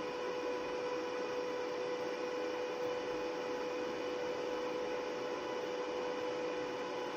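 A 230-amp inverter welding machine switched on and idling, not welding: its cooling fan runs with a steady electrical hum and a constant high tone.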